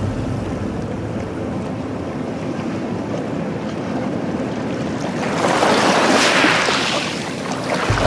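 Small sea waves breaking and washing over a pebble beach. About five seconds in, a wave surges up the shingle with a hiss lasting about two seconds. Low wind rumble on the microphone near the end.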